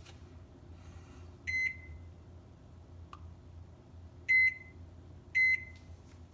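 Microwave oven humming while it runs, with three short high electronic beeps, the first fainter than the other two.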